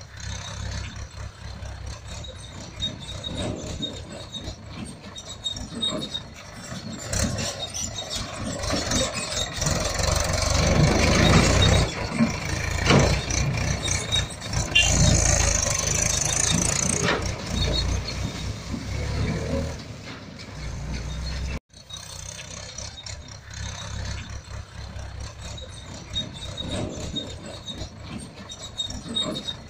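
Engine-like running sound of a toy tractor, uneven, with a heavier rumble in the middle. It breaks off abruptly about three-quarters of the way through, then starts again.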